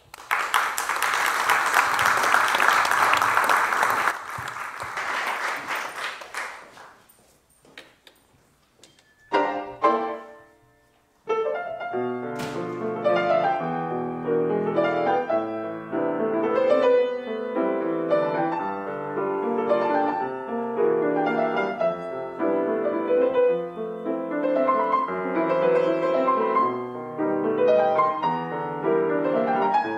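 Audience applause for the first six seconds or so, fading away, then a solo grand piano, a Steinway, starting with a short phrase, pausing, and going on into a continuous improvisation on a theme, close to Latin jazz in style.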